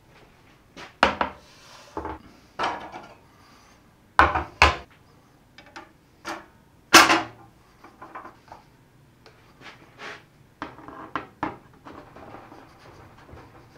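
A table saw sled's drop panel and the saw's throat plate being lifted off and set down on the saw table: a series of separate wooden and hard knocks, the loudest about seven seconds in, followed by lighter clicks and rattles.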